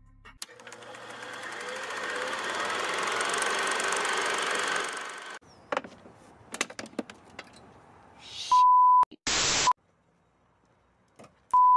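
A rushing noise that swells up over a couple of seconds, holds, then cuts off suddenly. A few sharp clicks follow, then a short steady electronic beep, a brief burst of static and a second beep near the end.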